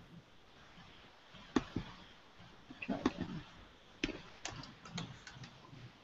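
Quiet, irregular clicking of a computer keyboard and mouse: scattered single clicks, then a quicker run of clicks in the last two seconds.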